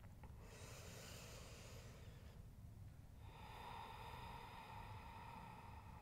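Faint, slow deep breathing from a person holding a seated forward fold: one airy breath of about two seconds, then after a short pause a longer breath.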